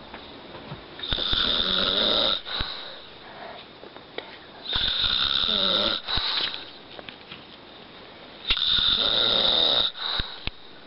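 A man snoring in his sleep: three loud snores about three and a half seconds apart, each lasting just over a second, with quieter stretches between.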